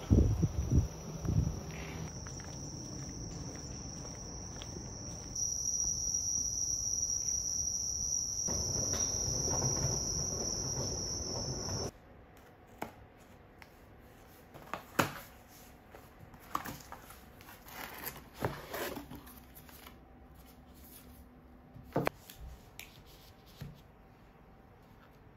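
Night insects such as crickets chirping in a steady high trill. Partway through this gives way to quieter sharp clicks and short scrapes: a blade slitting the packing tape on a cardboard box, then paper packaging being handled.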